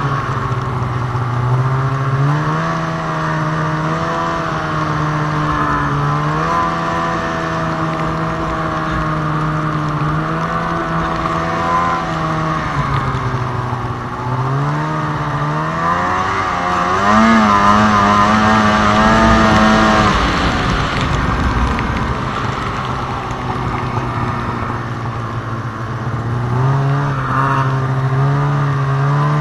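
2002 Arctic Cat ZR 800 snowmobile's two-stroke engine running under way, the revs rising and falling with the throttle: they climb steeply about halfway through, hold at their highest for a few seconds, drop off, and climb again near the end. A steady rushing noise runs beneath the engine.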